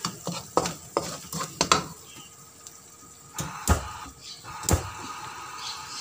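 Plastic spatula scraping and clicking against a stone-coated wok as a chili spice paste fries in a little oil, with a faint sizzle underneath and two louder knocks of the spatula on the pan near the middle. The paste is being sautéed until it dries out.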